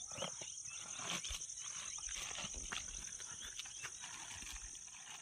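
Chorus of insects, cicadas or crickets, making a steady high-pitched buzz, with faint scattered rustles and clicks.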